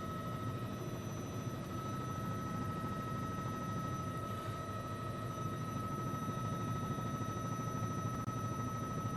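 News helicopter in flight: steady rotor and engine noise with a constant high-pitched tone running through it.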